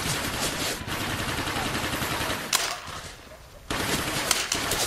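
Paintball markers firing rapid strings of sharp pops, several at once. The firing thins out about three seconds in, then starts again in quick bursts near the end.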